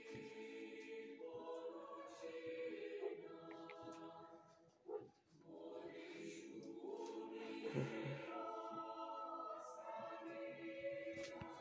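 Slow choral music with long held chords playing from a television, with a brief lull about five seconds in.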